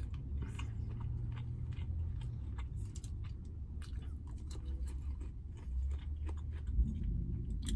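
A person chewing a mouthful of soft pot roast and baked potato, with many small wet clicks of the mouth, over a low steady hum.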